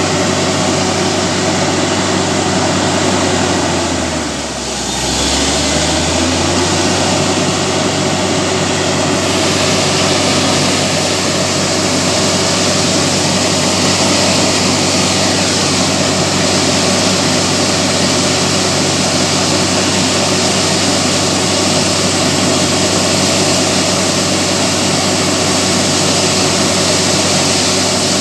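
Borewell drilling rig running steadily, a heavy engine drone with a rushing hiss over it. About four seconds in, the engine's pitch and loudness dip briefly, then pick back up.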